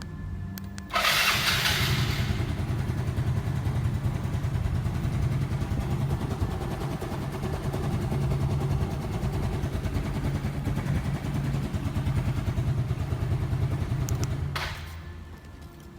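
Yamaha Fino scooter engine catching with a sudden loud burst about a second in, then running steadily at a low, even drone, which drops away shortly before the end.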